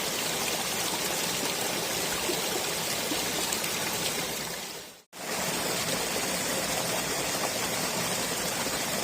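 Steady rush of running water, like a stream or small waterfall. It cuts out abruptly about five seconds in and starts again at once.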